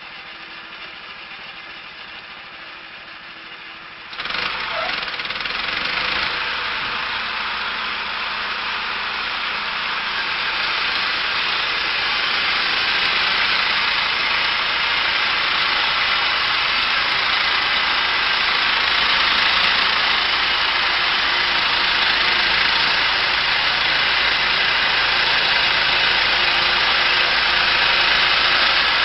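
A machine engine running steadily, then about four seconds in a much louder, dense mechanical noise starts suddenly and keeps building slowly.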